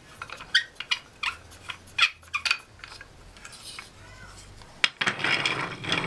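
Hardwood toy parts clacking and knocking together as they are handled: a quick series of sharp wooden clicks over the first two and a half seconds and one more just before five seconds. In the last second comes a denser scraping rattle of wood on wood and on the floorboards as a wheeled piece is set down.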